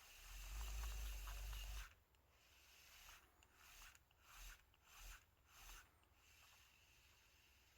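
Shimano 22 Stella spinning reel being cranked, its gears giving a faint swishing rub: one continuous turn of about two seconds, then four short turns. The owner still hears this swishing after removing a 0.01 mm shim from the drive gear and wonders whether break-in will clear it.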